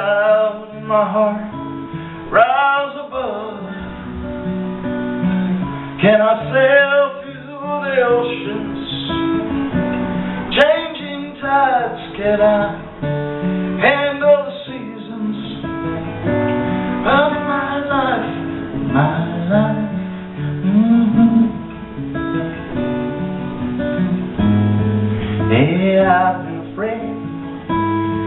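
A man singing into a microphone while playing an acoustic guitar: a live solo song, with sung phrases over steady guitar accompaniment.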